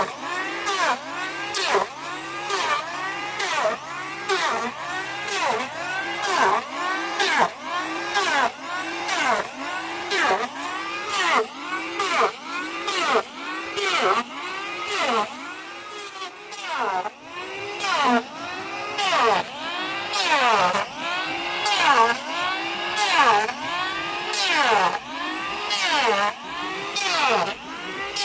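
Chainsaw engine revving up and down in quick, regular pulses, about three every two seconds, as the saw shaves across a wooden plank to plane it flat. The engine eases off briefly a little past halfway.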